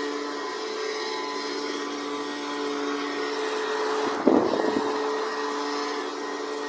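A steady mechanical hum with a constant pitch, and a brief loud knock about four seconds in.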